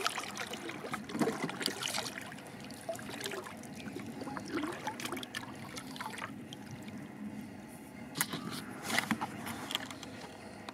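Water splashing and trickling around a kayak, in irregular bursts as the paddle dips and drips.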